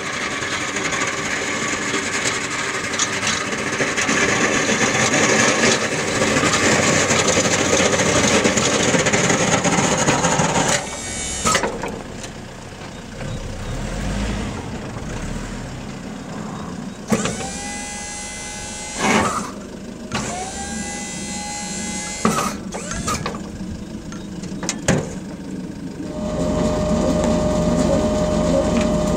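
Nissan Cabstar 45.13 light truck driving and pushing snow with a front plow blade: a dense steady rush of engine and snow that drops after about ten seconds. This gives way to quieter running with a few knocks and short rising whines, and a steady hum begins near the end.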